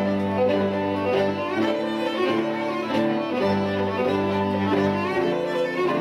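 String quartet of two violins, viola and cello playing a hoedown-style piece. The cello holds long low notes under quicker, shorter notes from the upper strings.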